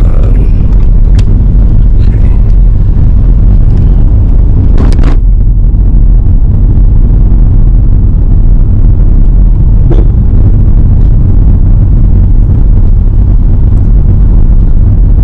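Steady low rumble of a car driving, heard inside the cabin: road and engine noise, with a few faint clicks.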